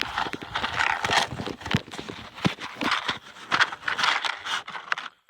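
Repeated rasping strokes of a match being struck against a matchbox striker, several tries without a lasting flame.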